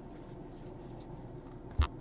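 Trading cards being flipped through by hand, with faint papery swishes, and one sharp knock near the end.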